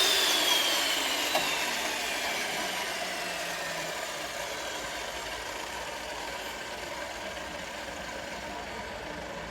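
Electric motor of a hydraulic square-chisel mortiser winding down: a whine that slowly falls in pitch and fades, over a steady mechanical hum.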